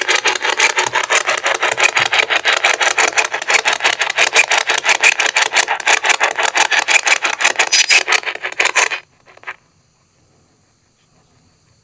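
Spirit box sweeping through radio stations: a rapid, evenly chopped hiss of static at about six pulses a second, which cuts off suddenly about nine seconds in.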